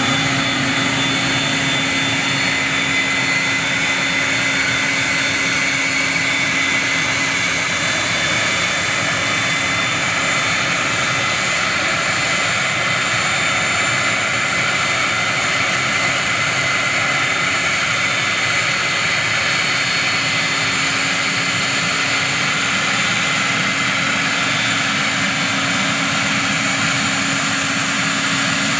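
Cessna Citation II's Pratt & Whitney Canada JT15D turbofan engines running on the ground, a steady high whine over a rushing noise.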